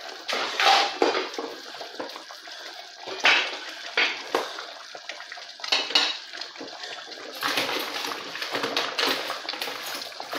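Metal cookware clinking and knocking several times, sharp separate strikes, over a stainless steel pot of stock boiling, with a longer rushing, watery stretch near the end.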